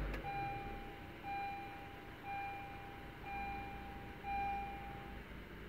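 Honda Accord's dashboard chime sounding as the car is started with the push button: five long, even tones about one a second, stopping about five seconds in. Underneath, the 2.4-litre four-cylinder engine catches at the start and settles to a low, steady idle.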